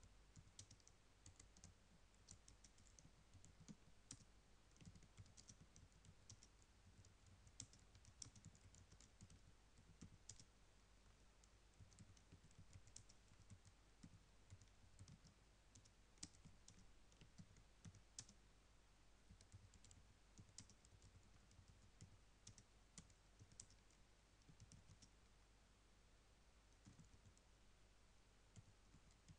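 Faint, irregular keystrokes of someone typing on a computer keyboard.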